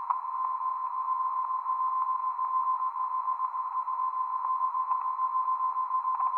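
Radio receiver's audio: the BRAMS meteor-radar transmitter's carrier, reflected off aircraft, comes through as a steady whistle-like tone in a band of hiss. Its level wavers throughout, and a few faint clicks come near the start and again about five and six seconds in.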